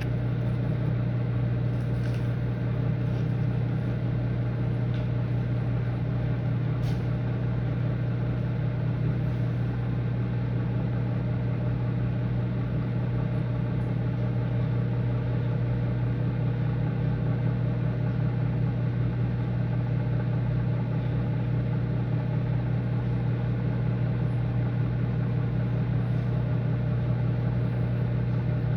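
Microwave oven running, a steady low electrical hum with a few faint ticks, while it heats a batch of Gushers fruit snacks that are starting to melt.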